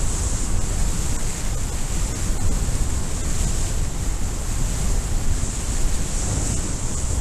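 Steady wind noise from the airflow of a speedwing flight buffeting the camera's microphone: a constant low rumble with a high hiss above it.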